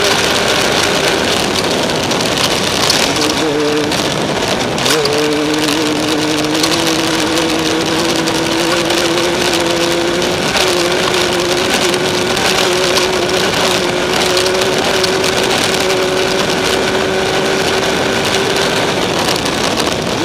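Off-road race vehicle's engine running steadily under a loud rush of noise. About four to five seconds in its pitch shifts, with one sharp knock at the change, and then it holds steady again.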